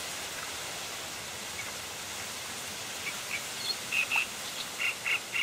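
Steady outdoor background hiss, with a handful of short, high bird chirps from about three and a half seconds in.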